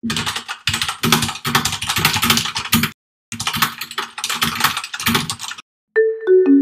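Rapid computer-keyboard typing sound effect, clattering keystrokes in two long runs with a short pause about three seconds in. The typing stops about a second before the end, and a few tuned mallet-percussion notes of intro music begin.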